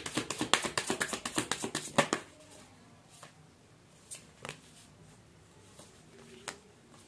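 Tarot cards being shuffled by hand: a quick run of card flicks for about two seconds. Then a few single soft taps as cards are drawn and laid on the table.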